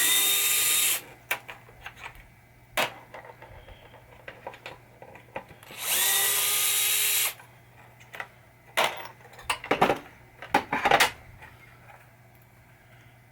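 Cordless power driver run twice, about a second each time, spinning up then running steady as it backs out playfield screws. Then a few sharp clicks and rattles of small hardware being handled.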